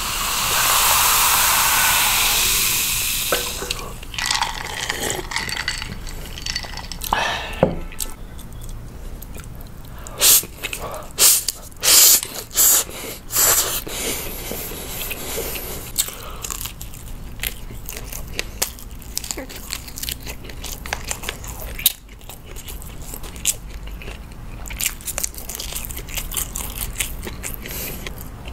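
Cola fizzing loudly as it is poured into a glass, dying away after about three seconds. Then close-miked eating: bites and chewing, with a run of sharp, crisp crunches near the middle from biting into crisp-skinned, air-fried Vienna sausages.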